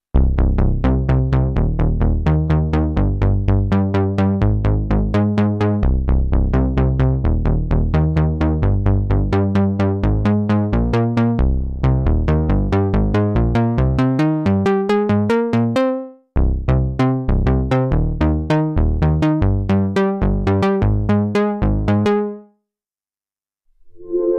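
Sequential Pro 3 analog synthesizer playing a fast sequenced pattern of short, plucky bass notes, about six a second. The pattern cuts out for an instant past the middle, then stops about two seconds before the end.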